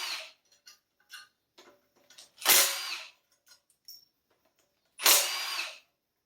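A power tool spins out 10 mm bolts on a Honda K24A2 engine. Three short bursts come about two and a half seconds apart, with small clicks of metal between them.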